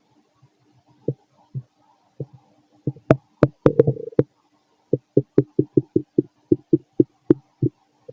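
Human stomach and bowel sounds during digestion: short gurgling pops, a brief bubbling gurgle about three and a half seconds in, then a quick run of pops at about four a second.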